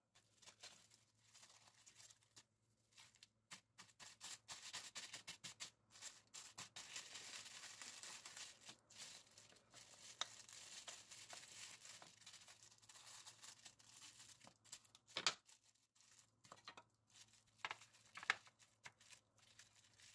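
Clear plastic wrap crinkling and rustling as butter cubes are handled in it and the wrap is cut apart with scissors. A few short sharp clicks come in the second half, the loudest about fifteen seconds in.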